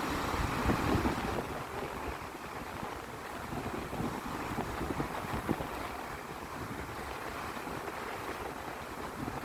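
Surf washing on the shore under a steady hiss, with wind buffeting the microphone in gusts, strongest in the first second or so.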